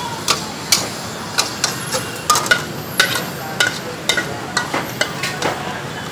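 Metal spatula clanking and scraping against a wok during stir-frying: sharp, irregular clanks several times a second, some with a short metallic ring, over steady market background noise.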